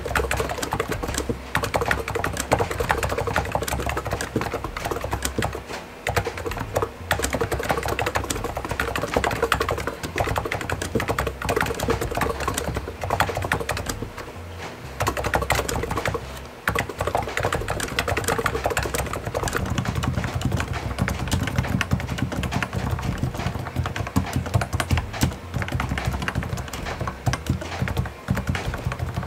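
Fast continuous typing on an Abko K965P V2 keyboard with 55 g Noppoo electro-capacitive switches, then on a Topre Realforce RGB with 45 g electro-capacitive switches. The later keystrokes have a deeper, fuller thock.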